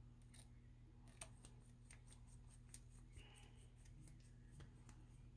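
Faint, scattered small clicks and ticks of a 2 mm hex driver turning and seating the back plate screws on a Force 28R model nitro engine, over a steady low electrical hum.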